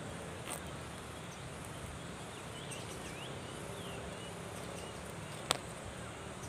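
Knife blade cutting at a durian's woody stem, ending in one sharp snap near the end as the stem is cut through. Behind it, a steady insect hum with a few short bird chirps in the middle.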